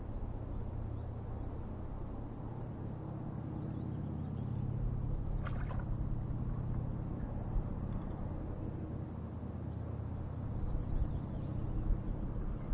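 Low, steady engine rumble with a hum, with one brief high-pitched sound about five and a half seconds in.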